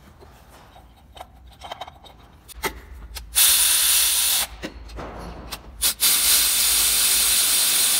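Power tool run twice, first for about a second and then for about two seconds, driving in the long bolts that hold the water pump cover base on a Honda Odyssey V6. Each run is a rushing hiss with no clear pitch, starting and stopping abruptly.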